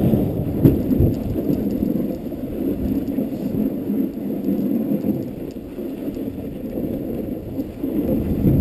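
Dogsled running over a snowy trail: a steady, muffled low rumble of the sled moving over the snow, with a couple of knocks in the first second as it bumps along.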